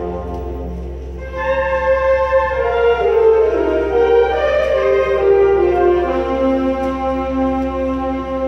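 Large concert band playing held brass and woodwind chords, with a louder melody coming in above them about a second in.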